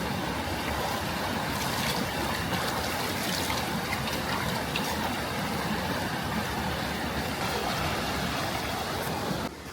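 Steady rush of flowing stream water with a few faint clicks over it; the sound drops away suddenly near the end.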